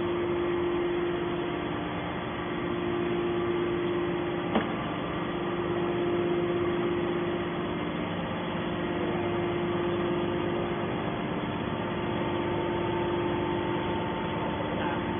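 YDF-63 hydraulic scrap-metal baler running, a steady machine hum with a held tone, with one short sharp click about four and a half seconds in.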